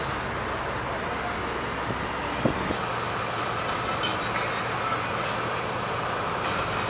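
City road traffic heard from inside a car: a steady rumble of engines and tyre noise. A short sharp click comes about two and a half seconds in, and the deep low rumble drops away just after it.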